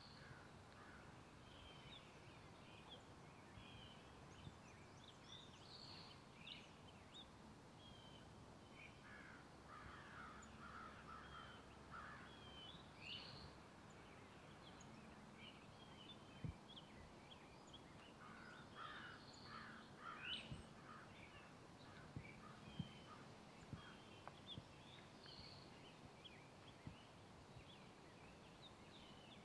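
Faint forest birdsong: many small birds chirping in short calls throughout, with two rapid runs of lower calls, and a few faint ticks.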